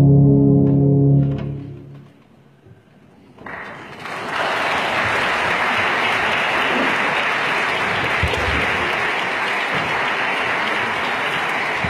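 Tubas hold a low chord that fades out in the first couple of seconds. After a short silence, steady applause starts and keeps going.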